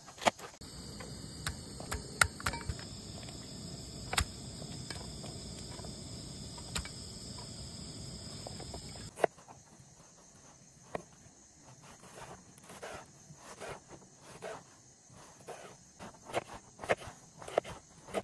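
Folding knife chopping onion and slicing tomato on a wooden cutting board: irregular knocks of the blade striking the board. For the first half a steady background hiss with insects chirring sits behind the knocks; it drops away about nine seconds in, leaving quicker, lighter cuts.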